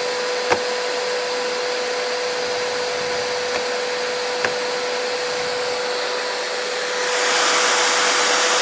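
Construction vacuum cleaner running in blower mode, blowing bees off honey frames: a steady motor whine under rushing air. There are a few light knocks about half a second and four and a half seconds in, and the air rush grows louder and hissier about seven seconds in.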